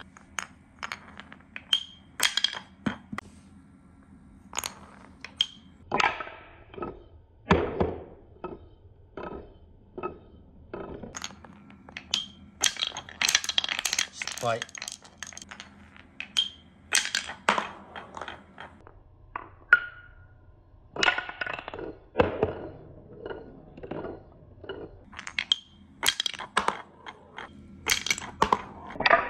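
Glass marbles on a beech-wood cuboro marble run: a long, irregular string of sharp clicks and clacks as marbles drop, roll and knock against the wooden blocks and chutes and against each other.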